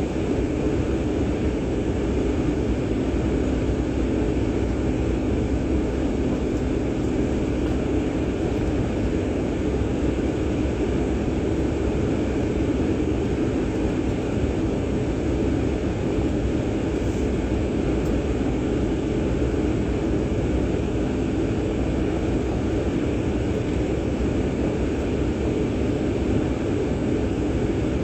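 Steady hum of a jet airliner's engines at taxi power, heard inside the passenger cabin; it holds an even pitch and loudness throughout.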